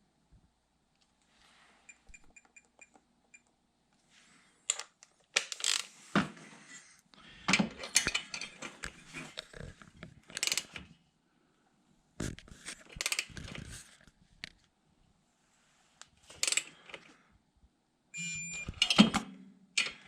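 Metal tools clinking and clanking while the cylinder nuts of a Ski-Doo 550F two-stroke engine are torqued down with a digital torque wrench. About two seconds in there is a quick run of short electronic beeps, the wrench's signal that it has reached its set torque.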